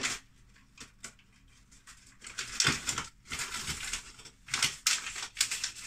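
Paper bag of caster sugar rustling and crunching as it is shaken and squeezed, in irregular bursts starting about two and a half seconds in; the sugar inside has set into hard lumps.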